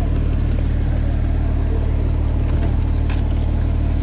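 Trout stocking truck's engine idling with a steady low hum, with a light click about three seconds in.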